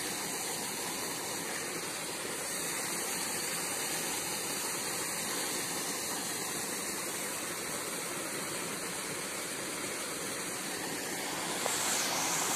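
Steady water noise: an even rushing hiss with no separate drips or strokes, growing a little brighter near the end.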